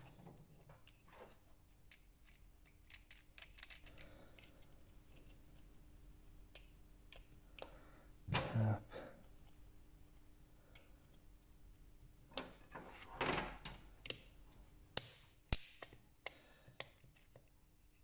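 Hard plastic parts of a Mercedes COMAND rotary controller being handled and pressed together as its scroll knob is refitted: scattered small clicks and knocks. There are louder knocks about eight seconds in and again about thirteen seconds in, then two sharp clicks.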